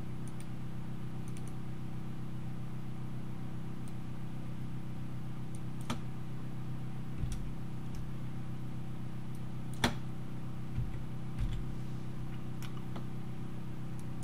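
Scattered computer mouse clicks and keyboard key presses, about half a dozen, the sharpest about two-thirds of the way in, over a steady low hum.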